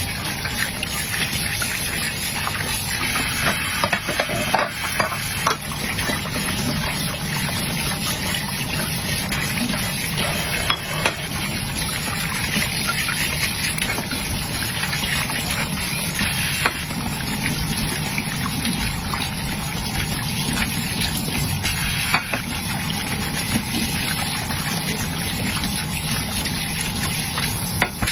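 Water running steadily from a tap while dishes are washed, with scattered light clinks of dishes.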